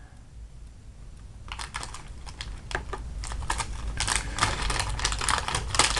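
Blind-bag packaging being handled and rummaged through: a quick, irregular run of small crinkles and clicks that starts about a second and a half in and grows louder.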